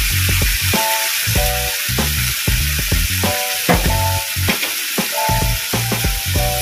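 Goat meat and bones sizzling in spice paste in a wok as they are stirred, over background music with a repeating melody and a steady bass beat.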